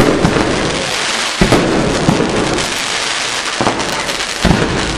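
Aerial fireworks going off: dense crackling from bursting stars, with four loud booms of shells bursting, one right at the start, one about a second and a half in, and two close together near the end.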